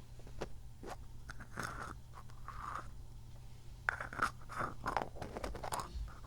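Close-up crackling and crunching handling sounds with irregular clicks, busiest in the second half, from the kidney-bean squeeze toy and its capsule-machine packaging being handled.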